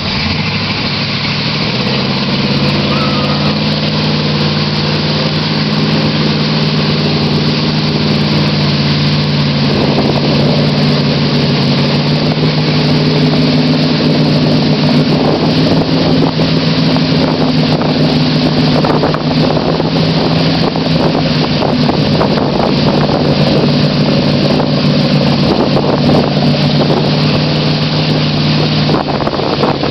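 Chevy pickup truck's engine held at steady high revs under full throttle while its 35-inch mud tires spin and churn through deep mud and water. The truck is bogged down and the wheels are cutting to drive it out.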